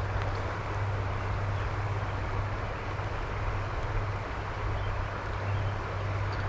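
Steady rushing of flowing stream water, an even noise without pauses or swells.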